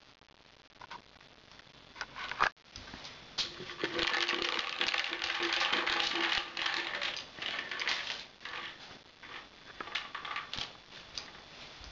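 Sheets of newspaper crinkling and rustling under a Pembroke Welsh Corgi puppy's paws as it walks and scrabbles over them, loudest for a few seconds in the middle, with scattered sharp clicks and knocks.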